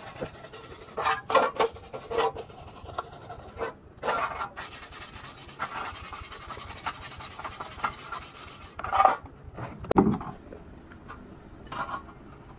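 Wire brush scrubbing a truck radiator's metal top tank: short scraping strokes, then a long unbroken spell of brushing, a last hard stroke and a single knock about ten seconds in.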